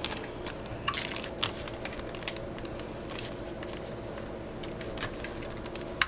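A scatter of light plastic clicks and ticks as the push-pin fasteners of an Intel stock CPU cooler are handled and pressed down into a motherboard, over a steady low hum.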